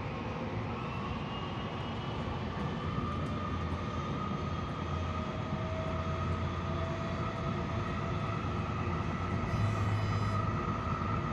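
Train running at speed, heard from inside the passenger car: a steady rumble and rush of wheels on rail with a faint whine that rises slowly in pitch as it gets a little louder.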